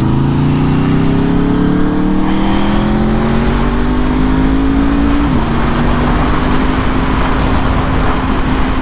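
Aprilia RSV4 1100 Factory's V4 engine pulling hard under acceleration, its pitch climbing steadily. About five seconds in comes a gear change, after which it holds a level note. Wind rush grows as the speed rises.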